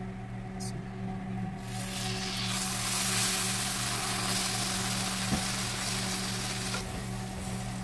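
Canned coconut milk poured into hot caramelized sugar in a pan sizzles hard as it hits, while a wooden spoon stirs. The sizzle starts about a second and a half in and dies down near the end.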